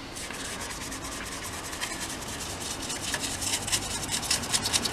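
Stiff flat paintbrush scrubbing back and forth over a plastic model's painted surface, blending oil-paint weathering. It makes a rapid scratchy rubbing that gets louder and quicker about halfway through.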